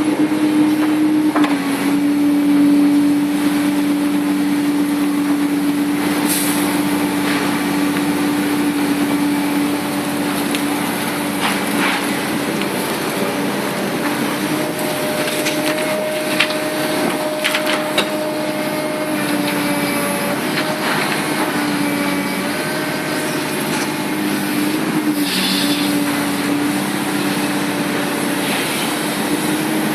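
Komatsu PC300-8 excavator's diesel engine running steadily under working load, its pitch shifting slightly, with scattered knocks and clacks from the machine at work.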